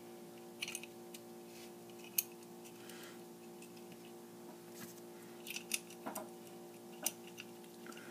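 Scattered small clicks and taps of the pedal's hardware (nuts, washers, jacks) being handled and fitted back into the enclosure of a Proco Rat distortion pedal, over a steady low hum.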